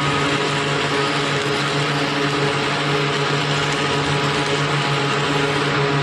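Electric arc welder cutting through a bolt: a steady hiss with a low hum underneath.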